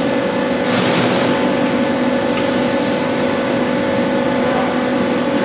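ZOPF ZB80 CNC tube bending machine running with a steady mechanical hum, with a brief hiss about a second in.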